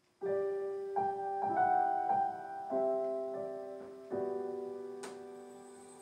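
Slow, gentle piano music. A chord is struck just after the start, single notes and chords follow every half second or so, and a fresh chord about four seconds in is left to ring and fade.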